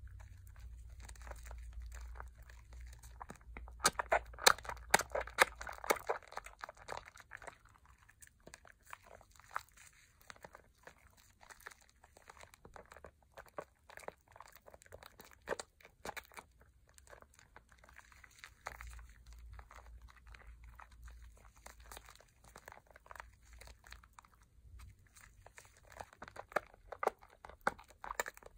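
Thick Pears soap lather being squeezed and kneaded in the hands over a bowl of soapy water: a continual run of small wet squishes and popping bubbles, with a louder flurry about four to six seconds in and again near the end.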